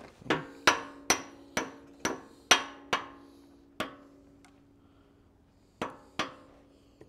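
Short sledgehammer striking a screwdriver driven as an aligning punch into the roll-pin hole of an excavator bucket pin, lining the pin's hole up with the coupler. About seven quick blows with a metallic ring, a pause, then one more and two last blows near the end.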